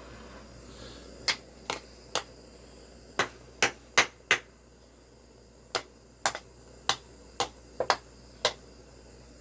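About fourteen sharp knocks in uneven groups: the heated aluminium crankcase of a Traxxas Pro 15 nitro engine being smacked against a hard surface to jar a press-fit bearing loose, with no bearing puller. The bearing has not yet dropped out.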